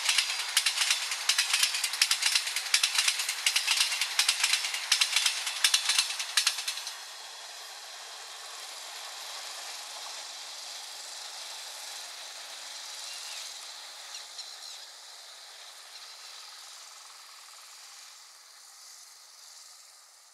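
Express train's passenger coach wheels clattering rapidly over the rail joints at speed. About seven seconds in, the last coach goes by and the clatter gives way to a steady hiss of the receding train, which slowly fades.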